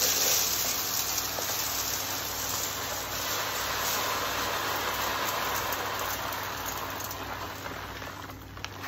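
Rock salt crystals pouring from a plastic bag into a perforated metal popcorn can: a steady rushing hiss that fades slightly near the end.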